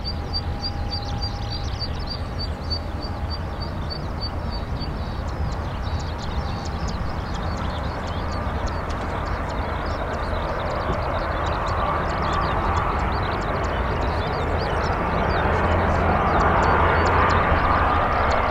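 Jetstar Japan Airbus A320-200 jet airliner on final approach, its engine noise growing steadily louder as it closes on the runway. A low rumble runs underneath throughout. In the first five seconds a rapid row of high chirps, about four a second, sounds over it.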